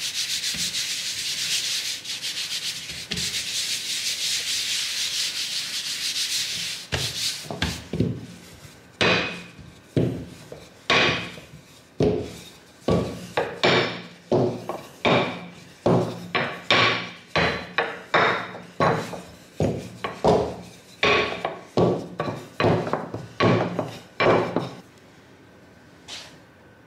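Floured palms rubbing over a sheet of green noodle dough with a steady hiss, then a wooden rolling pin worked over the dough in about twenty quick strokes, roughly one a second, which stop shortly before the end.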